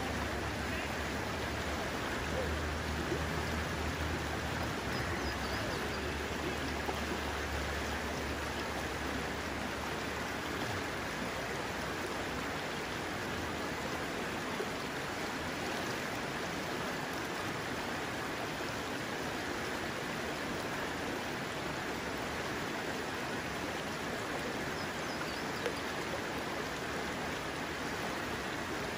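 Steady rush of a fast-flowing mountain trout stream, with a low rumble beneath it that fades out about ten seconds in.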